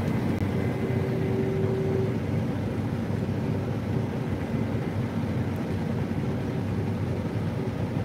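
Steady drone of a New Holland CR8.90 twin-rotor combine heard from inside its cab, its engine and threshing machinery running under load while it cuts wheat. A short steady whine sounds about half a second in and lasts just over a second.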